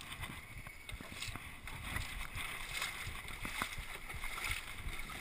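People shifting about in an aluminium jon boat: scuffing and handling noise with a few light knocks on the hull.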